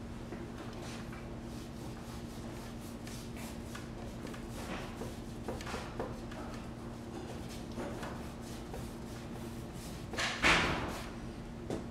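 Paintbrush strokes of acrylic paint on stretched canvas: a run of soft, scratchy brushing strokes, with one louder, longer scrape about ten seconds in.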